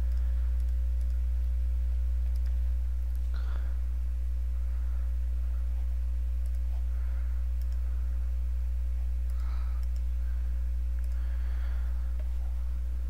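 Steady low electrical hum on the recording, with a few faint computer mouse clicks.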